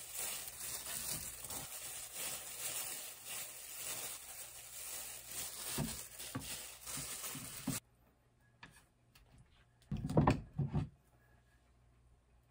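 Plastic-gloved hands squeezing and rolling seasoned rice into rice balls in a glass bowl: a steady crinkly rustle with a few soft thuds, which cuts off abruptly about eight seconds in. About ten seconds in, a metal frying pan is set down on the countertop with a few clunks, the loudest sounds.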